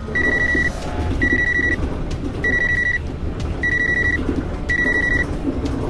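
Cordless phone ringing with a fast electronic trill: five short rings about a second apart, going unanswered. A steady low rumble from the moving train cab runs underneath.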